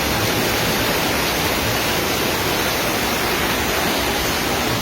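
Fast-flowing floodwater rushing past in a steady, unbroken rush.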